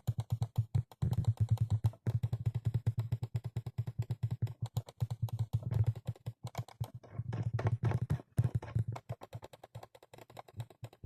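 Computer mouse buttons clicked rapidly over and over, many sharp clicks a second, thinning to slower, scattered clicks after about eight seconds.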